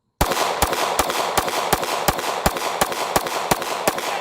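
The second Gen 5 gun firing through a magazine: a rapid string of sharp shots, about five a second, over a steady hiss. It cycles without stopping, a sign that the cleaned trigger reset is working again.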